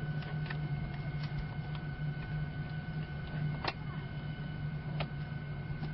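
Steady drone of a Boeing 737 MAX 8 cabin, with a few short plastic clicks from the seatback tray-table latch being fumbled at. The sharpest click comes about three and a half seconds in.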